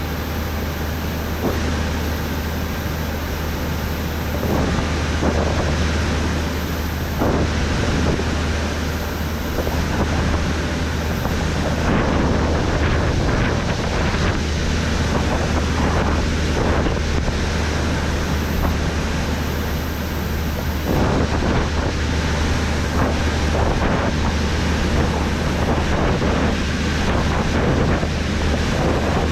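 John Deere S790 combine running steadily in wheat, heard from inside the cab: a constant low machine drone with scattered short knocks.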